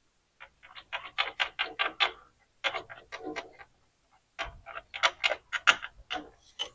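3/8-inch drive hand ratchet clicking in quick runs of ticks, about eight a second, in three spells with short pauses between, as a loose bell housing bolt is backed out.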